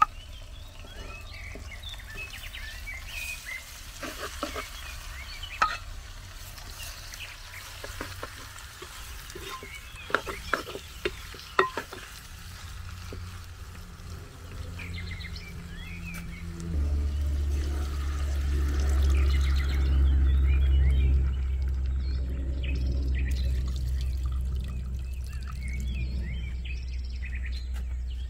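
A metal ladle clicks and scrapes against a clay pot as pieces of eel curry are spooned in and stirred, with small birds chirping. About two-thirds of the way through, a steady low rumble comes in and gets louder.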